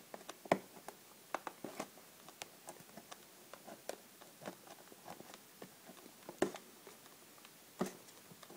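Fingernails picking and scratching at the sticker seal of a clear plastic retail package: a run of irregular small clicks and taps of plastic, with a few sharper ones about half a second in and twice near the end.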